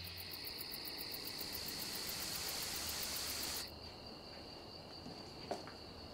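Crickets chirping in a steady high trill, dropping to a fainter level about three and a half seconds in, with a faint knock near the end.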